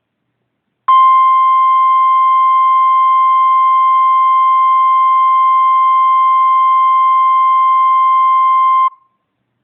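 NOAA Weather Radio 1050 Hz warning alarm tone: one loud, steady, unbroken beep that starts about a second in, holds for about eight seconds and cuts off abruptly. It is the alert signal that opens an EAS broadcast, here a required weekly test.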